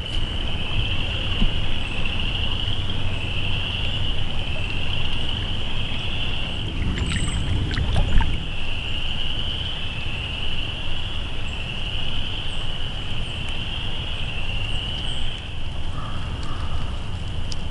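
A steady high-pitched chorus of frogs that swells and fades about once a second, over a low rush of flowing floodwater, with a single knock about eight seconds in.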